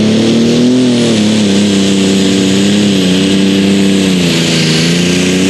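Light limited super stock pulling tractor's diesel engine at full throttle, hauling the weight-transfer sled down the track. The pitch climbs in the first second, then holds with small wobbles, with a thin high whine above it from about a second in.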